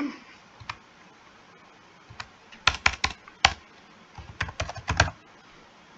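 Computer keyboard keystrokes in short bursts: a few single clicks, then a quick run of keys about three seconds in and another run near the end.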